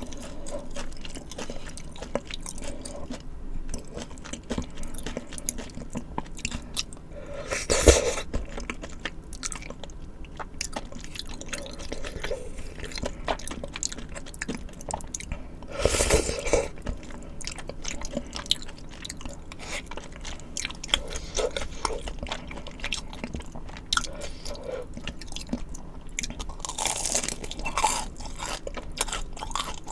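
Close-miked chewing of spicy tteokbokki rice cakes and fried side dishes: steady wet mouth sounds, with three louder bites or crunches, about 8, 16 and 27 seconds in.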